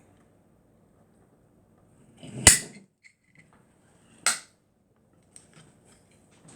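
Two sharp crunches from biting into crispy fried fish, about two seconds apart.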